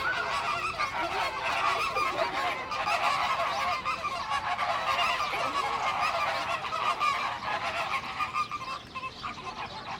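A flock of birds honking in a dense, goose-like chorus of many overlapping calls, thinning out near the end.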